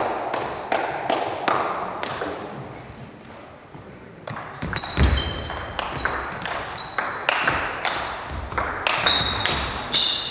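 Table tennis ball clicking off bats and the table, first at about three hits a second, then after a short lull a fast rally from about four seconds in. A low thump comes about five seconds in.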